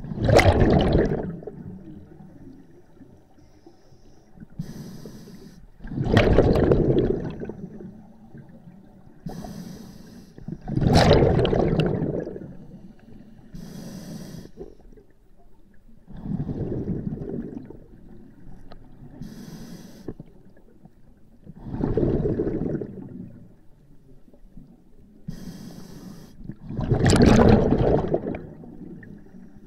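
A scuba diver breathing through a regulator, about one breath every five and a half seconds. A short hiss on each inhale through the demand valve alternates with a louder burst of exhaled bubbles, six breaths in all.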